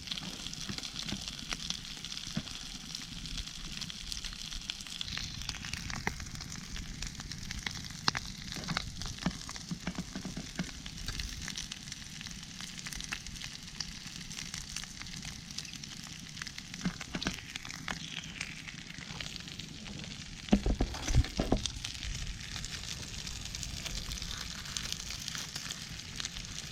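Pork belly wrapped in banana leaves grilling over a fire, sizzling steadily with scattered crackles and pops. A few louder low thumps come about two-thirds of the way through.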